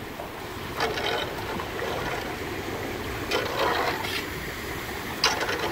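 Shallow storm-surge floodwater sloshing and splashing as it is pushed with a long-handled squeegee, with three louder splashes: about a second in, around three and a half seconds in, and near the end.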